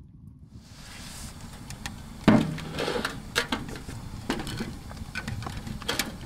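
A series of sharp knocks and clatter, the loudest about two seconds in with a brief low ring, like wood and metal being handled, over a steady hiss.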